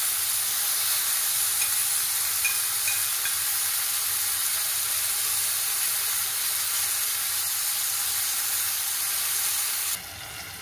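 Marinated chicken steak sizzling on a hot ridged grill pan while leftover peri peri marinade is spread over it. The hiss is steady and drops off suddenly near the end.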